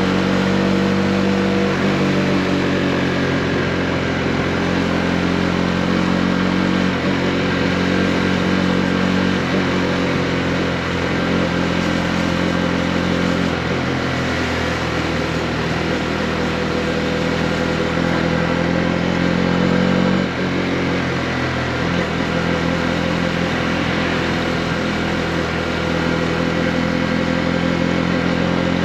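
Honda CB125R motorcycle's single-cylinder four-stroke engine running under way, its note holding fairly steady with gentle rises and falls. The sound dips briefly about two-thirds of the way through.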